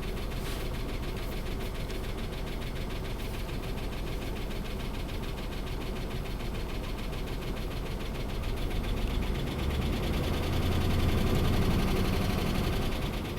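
A 2005 Dodge Ram 2500's 5.7 Hemi V8 idling with a fast, steady ticking and a single-cylinder misfire. The mechanic thinks a roller lifter has seized and worn out a cam lobe. The engine grows louder from about nine seconds in.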